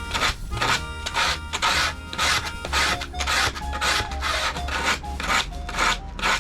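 Wood being worked by hand with back-and-forth rubbing strokes, about three a second, as in sanding or rasping a wooden board.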